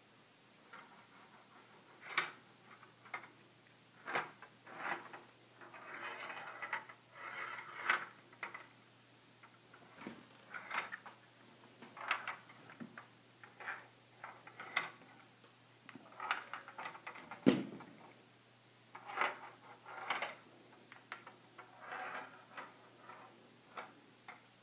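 The ball inside a Perplexus Epic maze sphere rolling and clicking along its plastic tracks as the sphere is turned in the hands: irregular clicks and taps, with a few short rattling rolls.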